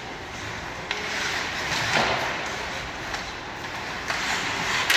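Ice hockey play on a rink: skates scraping the ice and sticks on the puck, with a sharp crack near the end.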